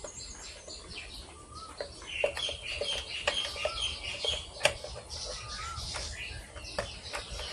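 Birds chirping and whistling steadily in the background. A few light clicks and knocks, the sharpest about four and a half seconds in, come from a motorcycle headlight unit being pressed into its shell by hand.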